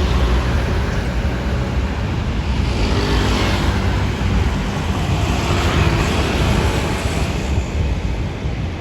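Road traffic going by: engine and tyre noise over a low rumble, swelling as vehicles pass about three seconds in and again about six seconds in. No bus horn sounds.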